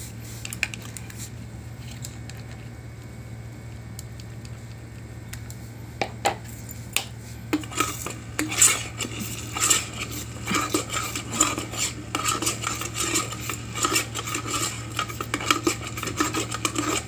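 A utensil stirring and scraping in a nonstick electric cooking pot of sardines and egg. After a few scattered clicks it turns into rapid, continuous clinking and scraping from about seven seconds in, over a steady low hum.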